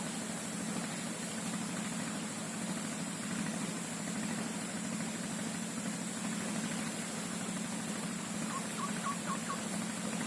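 Steady swamp ambience: a low, even drone under a constant high-pitched insect buzz, with a quick run of about five short chirps near the end.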